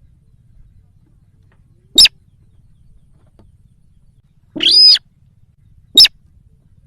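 Sintar bird lure call: two short, sharp notes about four seconds apart, with a longer, arching call between them.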